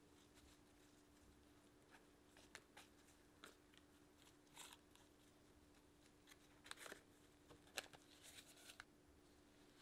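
Faint crunching and rustling of crumbly streusel topping as a gloved hand spreads and pats it over the filling in a parchment-lined pan: scattered small clicks and crackles, busiest in the second half.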